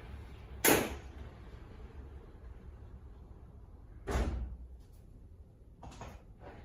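Two sharp knocks about three seconds apart, the first sudden and brief, the second a little longer, with a couple of faint knocks near the end.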